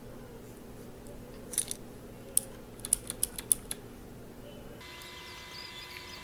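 Mechanical keyboard keys being pressed: about eight sharp, uneven clicks over roughly two seconds. A faint steady hum comes in near the end.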